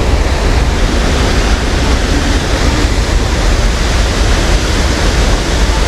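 Loud, steady rush of fast-flowing whitewater, with a deep, even rumble underneath.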